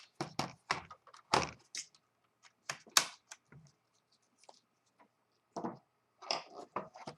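Sharp plastic clicks and knocks from a laptop being handled as its battery latch is released and the battery is pulled out, in irregular bursts with one louder knock about three seconds in.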